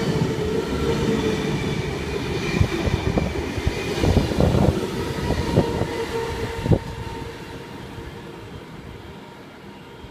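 V-set double-deck intercity electric train passing close by at moderate speed: a rumble of wheels on rail with a steady hum and a quick run of wheel clicks over the rail joints. The sound drops away after about seven seconds as the last car goes by.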